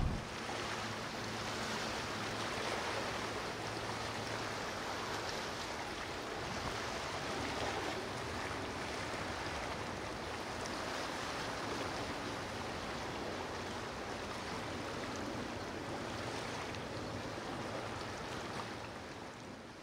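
Steady rushing noise of water or surf, fading out near the end.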